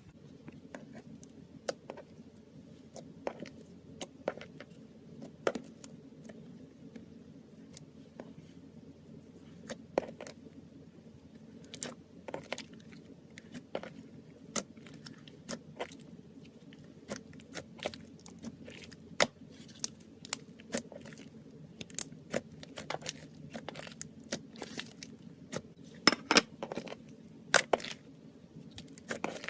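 Glitter slime being squeezed, poked and stretched by hand, giving off irregular sticky clicks and pops that come thicker and louder in the second half, over a steady low hum.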